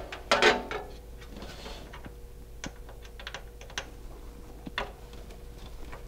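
Small plastic clicks and handling noise as a front-panel HD audio cable connector is worked onto its pin header on a motherboard, with a louder cluster of clicks about half a second in and a few single light ticks after.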